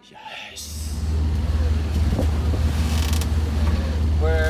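Steady low rumble of wind buffeting the microphone over a sailboat's engine while motor-sailing into a choppy headwind; it comes in suddenly about half a second in.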